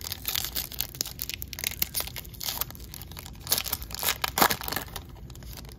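Foil wrapper of a retail baseball card pack being torn open and crinkled by hand: a run of crackling and tearing, with a few louder crackles in the second half.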